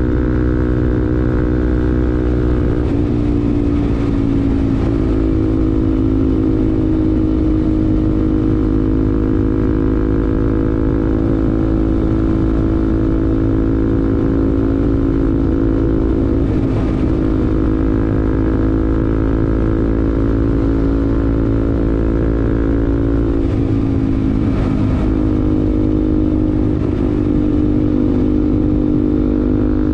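Bajaj Pulsar NS200's single-cylinder engine breathing through an R9 aftermarket exhaust, running steadily under way with a bassy note. Its pitch drops and settles about three seconds in, and dips briefly twice later on.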